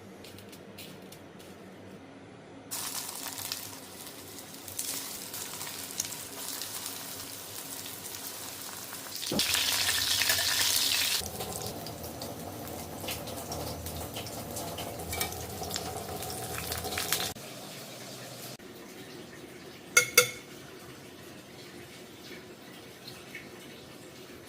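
Food sizzling in hot oil, with the clink and scrape of utensils. The sizzle starts suddenly about three seconds in, is loudest for a couple of seconds near the middle, and cuts off suddenly after about seventeen seconds. Two sharp clicks follow near the end.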